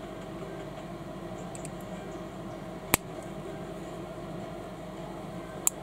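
Plastic building bricks snapping together: two sharp clicks, one about three seconds in and one near the end, over a steady background hum.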